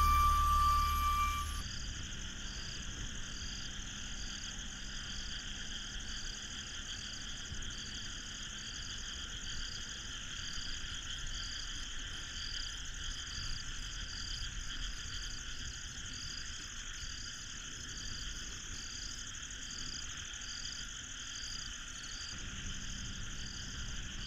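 A song ends about two seconds in, leaving a steady chorus of small calling animals, with one high call pulsing at an even pace over a steady high hiss.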